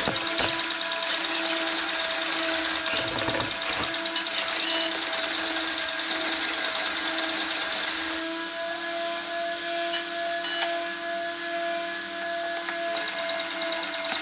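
Small cooling fan on the RC car's electronic speed controller running steadily with a whirring hum and a fine rapid rattle, powered only by a 16-farad supercapacitor with the battery unplugged. The rattle eases off for about five seconds past the middle, then comes back.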